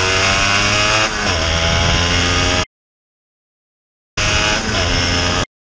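Motorcycle engine running at high revs, its pitch dipping and recovering about a second in, then cut off abruptly. After a second and a half of dead silence it comes back for just over a second, dips in pitch again, and cuts off.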